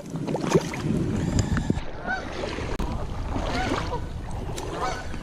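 Geese honking in a few short, agitated calls, starting about two seconds in, over the wash of water. These are territorial calls at an intruder, typical of geese with a nest nearby.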